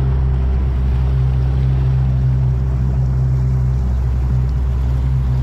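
Outboard motor of a small aluminium tinny running steadily under way, a constant low hum with a hiss of water and wind over it.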